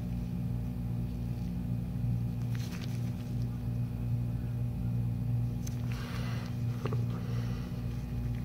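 Steady low electrical hum, with a few faint handling rustles and clicks from gloved hands between about six and seven seconds in.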